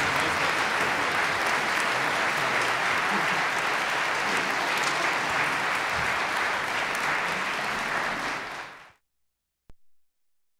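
Audience applauding steadily, then stopping abruptly near the end, followed by one faint click.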